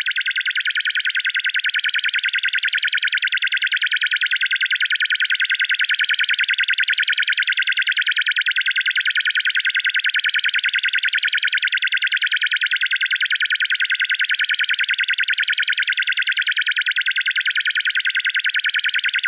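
Vintage 1950s sci-fi flying saucer sound effect: a synthesized electronic tone pulsing in a rapid, even warble, high and thin, held steady without change.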